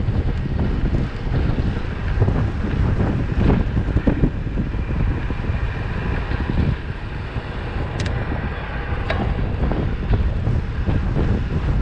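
Wind buffeting the camera microphone on a road bike during a fast descent, with steady tyre noise on the asphalt. A few sharp clicks come through, two of them about two-thirds of the way in.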